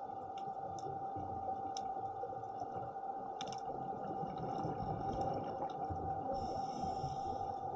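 Underwater ambience beneath a moored liveaboard dive boat: a steady mid-pitched hum over a low rumble, with scattered sharp clicks and crackles.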